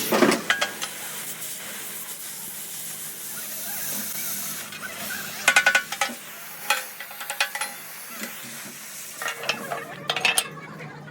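Steel clanks and knocks with a short metallic ring, in irregular clusters, over a steady hiss during heavy metal repair work on an excavator bucket.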